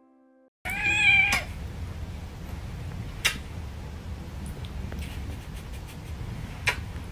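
A kitten meows once, a short high-pitched call about a second in. Steady low rustling from handling follows, with two sharp clicks.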